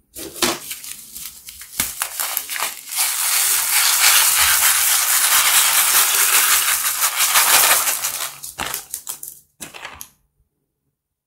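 Tiny beads poured from a container into a glass dish of clear slime, pattering as they land and bounce. Scattered clicks build to a dense, steady rush about three seconds in, then thin out to a few clicks and stop about ten seconds in.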